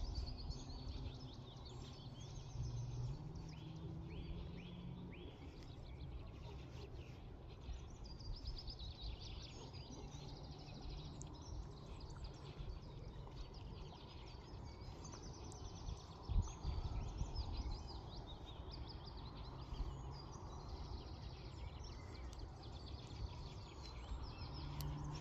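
Small songbirds chirping and trilling almost without pause, over a low rumble of wind on the microphone. There is a single sharp knock about two-thirds of the way through.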